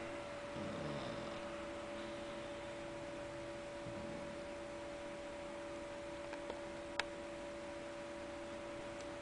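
A cat snoring softly, one snore about a second in and a fainter one near four seconds, over a steady two-note electrical hum. A sharp click about seven seconds in.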